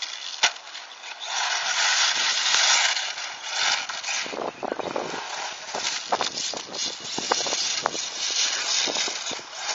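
A 1/8-scale RC8 off-road buggy converted to brushless electric drive, running on a dirt track. Its tyres hiss over loose dirt and gravel, loudest for a couple of seconds about a second in, with scattered sharp clicks of stones and impacts.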